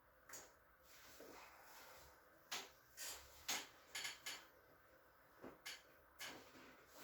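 A series of short, sharp clicks and knocks from objects being handled, uneven in spacing, with the loudest cluster in the middle and faint rustling between them.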